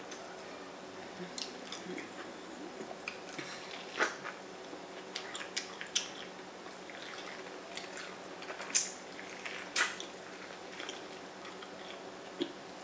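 Close-up eating sounds of a person biting kernels off a cob of boiled corn and chewing: irregular wet clicks and smacks, the sharpest about 4 s, just under 9 s and about 10 s in.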